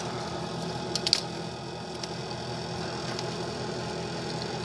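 Steady hum of a running space heater, with two or three light metallic clicks about a second in from tools on the snowblower's gearbox housing.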